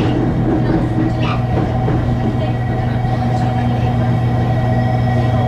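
Electric trains at a station giving a steady, unchanging low electrical hum, with a few fainter steady higher tones over it.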